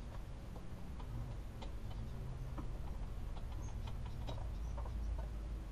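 Light, irregular metallic clicks and taps as a wire hanger is handled and twisted around a motorcycle's removed front brake caliper, over a low steady hum.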